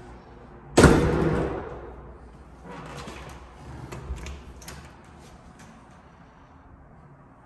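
A loud bang about a second in, echoing on for a moment in the bare room. Later comes handling noise and the clicks of a doorknob latch as a closet door is opened.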